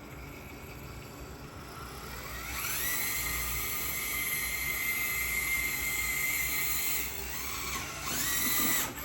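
Furitek brushless motor and drivetrain of an Axial SCX24 1/24-scale crawler whining under throttle. The high whine rises about two and a half seconds in, holds steady, drops about seven seconds in, then rises again and cuts off near the end.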